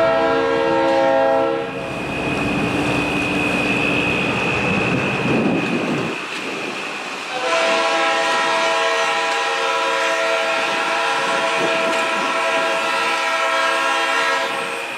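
Diesel locomotive air horn blowing a multi-note chord, stopping a couple of seconds in while the passing train rumbles and rattles over the rails, then sounding a second long blast from about seven seconds in until near the end.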